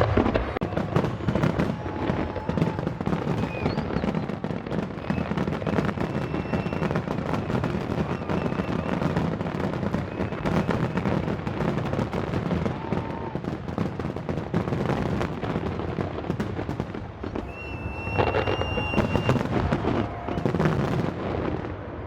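Aerial fireworks going off in a rapid, continuous barrage of bangs and crackling, with a brief high whistle near the end.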